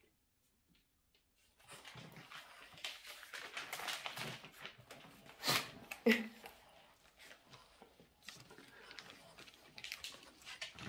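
Paper flyer rustling and crinkling as a Boston terrier noses and paws at it, starting about a second and a half in and loudest around the middle, with a few sharper crackles.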